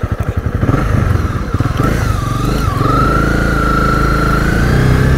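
Motorcycle engine idling with an even pulse, then pulling away about a second in, its note rising as the bike gathers speed and then holding steady.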